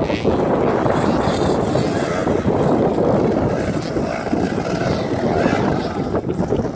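Motocross bike engines running and revving on and off the throttle as riders go round the track, mixed with rough wind noise on the microphone.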